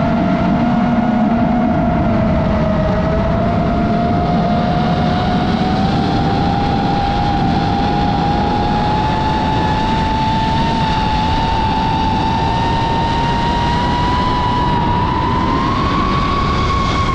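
DJI FPV drone's motors and propellers running in flight, a steady whine whose pitch climbs slowly and evenly throughout, over a constant rushing noise.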